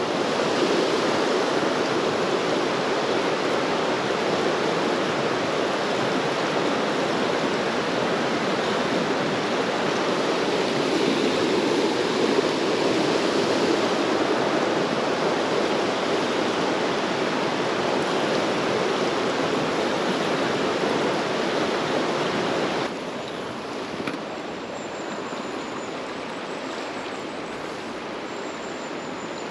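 Fast-flowing river water rushing steadily over a riffle. About 23 seconds in, the rush suddenly drops to a quieter level and carries on.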